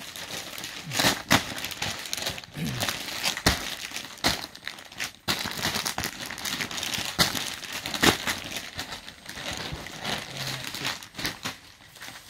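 Crinkling and rustling with many sharp crackles, as a wrapped suit and its packaging are handled and unfolded.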